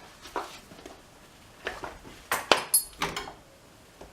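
Small hard objects being handled and set down on a hard surface: a series of separate knocks and clicks, loudest about two and a half seconds in, with a brief metallic clink just after.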